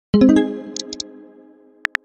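A texting app's chime: a chord of several tones rings out and fades over about a second and a half. Keyboard typing clicks start again near the end.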